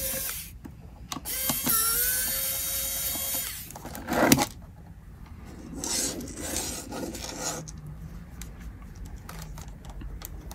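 Pen-style electric screwdriver whirring as it backs out Phillips screws from a plastic calculator case. One run stops about half a second in, and a second run of about two seconds rises in pitch as it spins up. A sharp click follows about four seconds in, then quieter handling of the plastic case.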